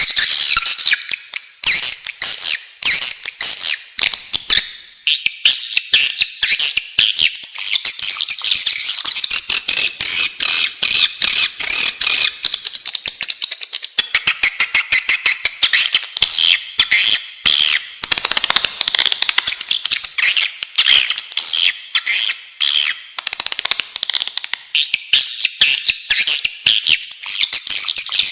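A flock of swiftlets twittering and chirping in a dense, nonstop chatter of rapid high chirps and clicks. These are the swiftlet lure calls played to draw the birds into nesting houses.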